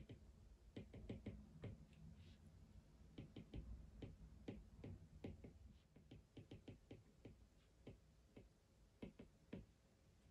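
Quiet, irregular light clicks and taps, several a second, of small hard objects being handled.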